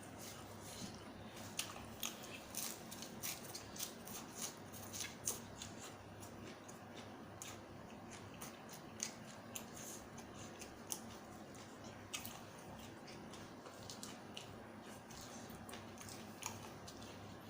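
Close-up eating sounds: chewing with many short wet clicks and smacks, thicker in the first few seconds and sparser after, over a faint steady low hum.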